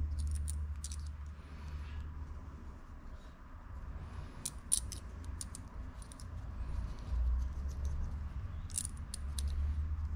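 Two gold aftermarket 60-tooth star ratchet rings for a DT Swiss hub clicking lightly against each other as they are handled, in three brief clusters of clicks, over a low steady hum.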